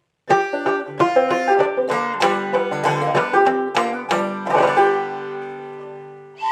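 Clawhammer-style banjo playing a short run of plucked notes, ending on a chord that rings out and fades.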